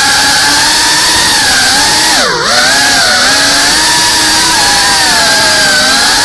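FPV drone's brushless motors and propellers whining loudly and steadily, the pitch wavering with the throttle. About two seconds in the pitch and loudness dip sharply for a moment, then climb back.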